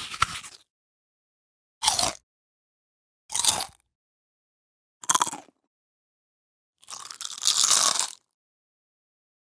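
Close-up crunchy bites into hard food, played as separate sound effects with silence between. One ends just after the start, three short crunches follow about a second and a half apart, and near the end comes a longer crunch lasting more than a second.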